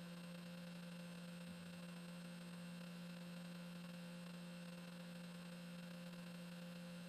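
Desktop CNC spindle running steadily as a fine V-bit engraves copper-clad PCB at a slow feed: a faint, even low hum with a thin high whine above it.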